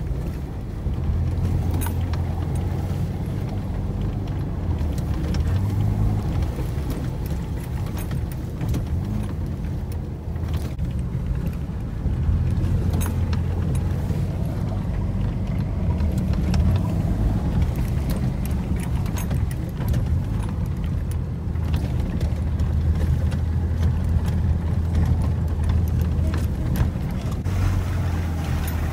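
Off-road vehicle's engine running under load, heard from inside the cab as it crawls over a rutted icy track. The low drone swells and eases several times, with occasional knocks from the bumps.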